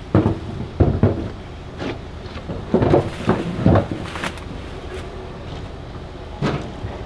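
Irregular knocks and clunks of gear being handled on a boat, about eight in all, most of them in the first four seconds, over a steady low rumble.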